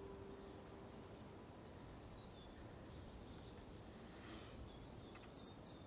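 Near silence: quiet outdoor ambience with faint, scattered bird chirps.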